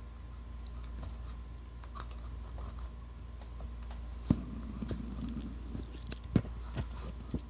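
Small clicks, scrapes and a few sharp knocks of a shower head being handled and screwed by hand onto the threads of a flexible shower-arm extension.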